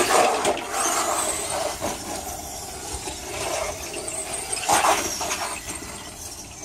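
Electric RC truck with a 550 Titan 12-turn brushed motor driving fast over concrete and dry grass. The motor whines and the tyres rush in uneven swells as the throttle is worked, loudest right at the start and again near five seconds.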